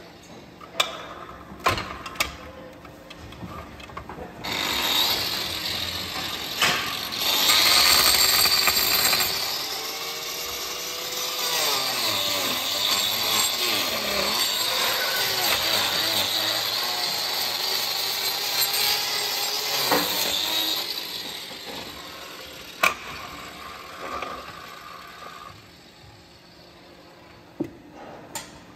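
A few sharp metal knocks, then from about four seconds in a hand-held power tool grinding away cow hoof horn for about twenty seconds, its pitch dipping and recovering as it cuts. It dies away near the end, followed by a few more knocks.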